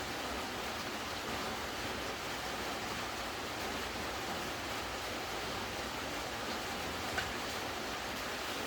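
Steady rain falling, an even hiss with no break, and a single short click about seven seconds in.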